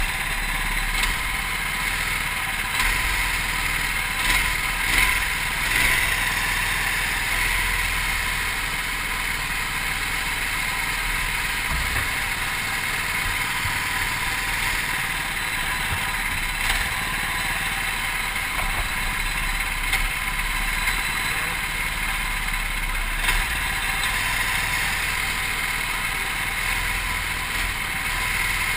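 Go-kart engines running steadily in a close pack, heard through a GoPro on the driver's helmet.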